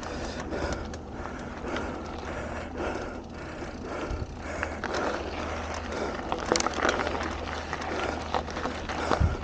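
Mountain bike rolling down a dirt and gravel trail: tyres crunching over the surface and the bike rattling, with scattered sharp knocks over bumps, a few louder ones about six and a half seconds in and near the end, over a steady low rumble of wind on the microphone.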